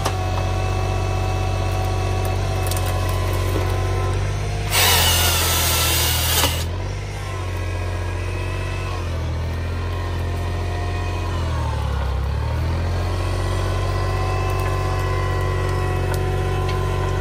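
Homemade mini harvester-forwarder's 25-horsepower engine running under hydraulic load, its pitch sagging briefly about twelve seconds in. About five seconds in, a loud rasping burst of about two seconds from the harvester head's saw cutting through a log.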